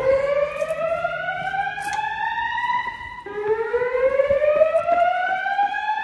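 Fire alarm voice-evacuation speakers sounding the whoop evacuation tone: two long sweeps that each rise steadily in pitch, the second starting a little past three seconds in.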